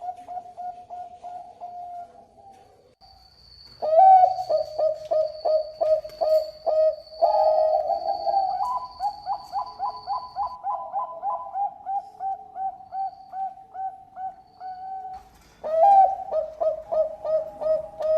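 Zebra dove of the Bangkok strain (perkutut bangkok) singing its cooing song: phrases of rapid, short coo notes in a pulsing run. A phrase fades out at the start, a long one runs from about four seconds in, and another begins near the end.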